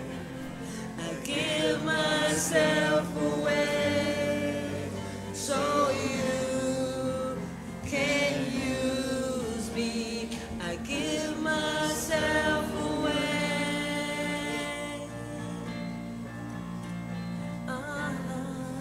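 Gospel song sung by voices with a sustained keyboard accompaniment.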